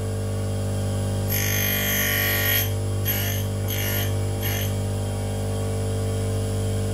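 Union tool and cutter grinder running steadily while its wheel grinds the end of an endmill, taking a light 0.04 mm cut for the secondary relief on the end cutting faces. The grinding comes as one longer pass a little over a second in, then three short passes in quick succession.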